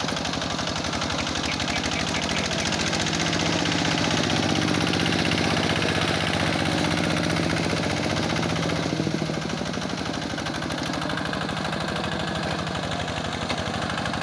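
Single-cylinder diesel engine of a two-wheel hand tractor running steadily under load with a fast, even chug as it tills sticky, flooded paddy mud. It is a little louder in the first half and eases off about nine seconds in.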